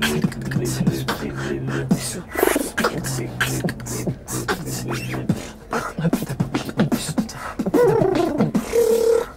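Beatboxing: a fast mouth-made beat of sharp clicks and snares over a low hummed bass line, with a sliding vocal sound near the end and a short held note just before it stops.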